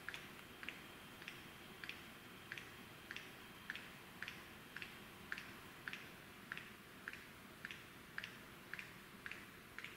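Male lyrebird's display call during its courtship dance: a steady run of short, sharp clicks, a little under two a second, faint against the quiet bush.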